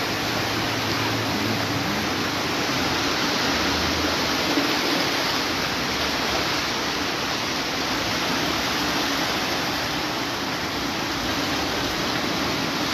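Steady rushing of floodwater pouring across a street, with heavy rain still falling.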